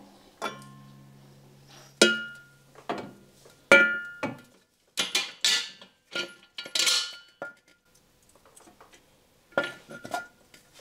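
Metal hand tools clinking and knocking on the turbo manifold's flange nuts and studs while the nuts are tightened. There is a series of separate sharp clinks, several of them ringing briefly.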